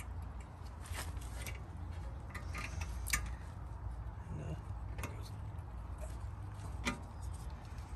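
A few light metallic clicks and taps, spaced a second or two apart, as the spring-steel retaining clip is worked into place by hand on a rear brake caliper, over a low steady hum.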